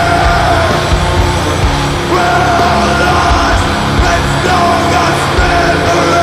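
Doom/sludge metal band playing loud live: dense, distorted band sound with long held notes and regular drum hits.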